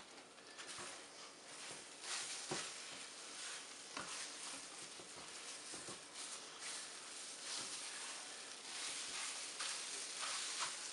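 Scrambled eggs sizzling in a hot Orgreenic non-stick frying pan while a spatula stirs and scrapes them across the pan, with a few short scrapes or taps standing out over the steady hiss.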